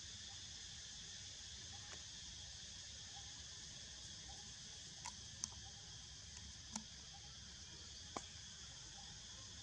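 Steady high-pitched insect chorus buzzing evenly, with four short sharp clicks around the middle.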